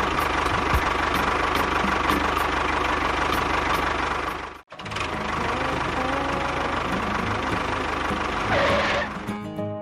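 Small engine running steadily, cutting out for an instant a little before halfway and then running on.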